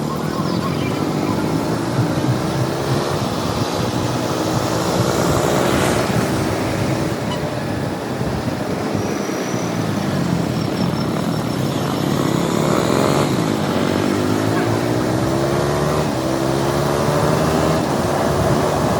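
KTM 200 Duke's single-cylinder engine under way, its revs climbing several times and dropping back between gear changes, over wind and road noise.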